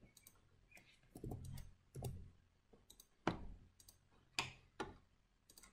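Faint, irregular clicks of a computer mouse, about eight of them, as commands are picked on screen.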